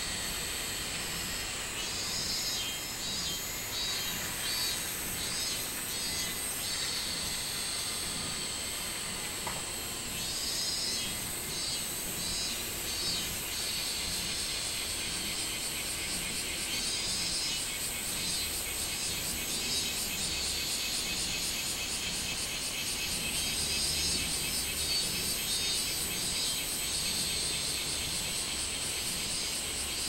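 Minmin cicadas (Hyalessa maculaticollis) singing in the trees: about four bouts of quickly repeated, pulsing high notes, each lasting several seconds, over a steady high insect drone.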